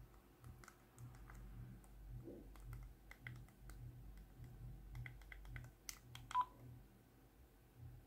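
Keys being pressed on a teXet push-button feature phone as a number is dialled: a quick run of faint key clicks with short keypad tones. A short, louder beep comes about six and a half seconds in.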